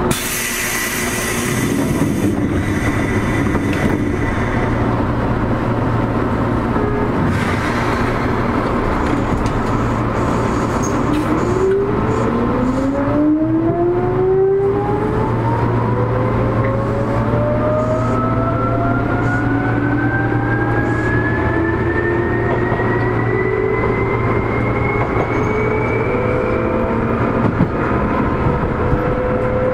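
Seibu 2000 series electric train, heard from inside the car, running with a steady low hum, then pulling away: about eleven seconds in, the field-chopper-controlled DC traction motors and gears start a whine that rises steadily in pitch as the train accelerates.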